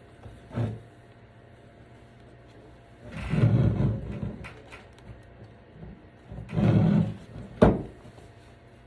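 Handling noise from the cart frame tube while a shock cord is worked through it: three bursts of rubbing and scraping, the middle one the longest, and a single sharp knock near the end.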